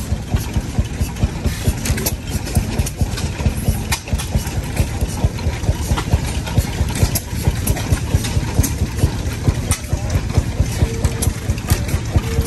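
Antique stationary gas engines running, a low rumble with sharp exhaust pops about three times a second.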